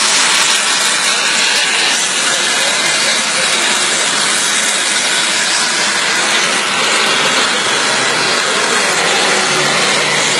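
Radio-controlled model jet's engine running at high thrust with a loud, steady rushing hiss while the jet hangs nose-up in a hover.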